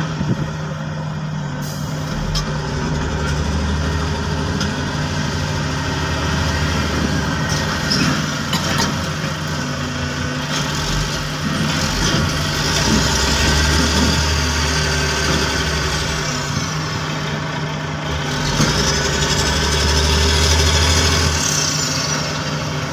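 Hydraulic excavator's diesel engine running steadily, with its deep rumble swelling three times in long surges as it comes under load.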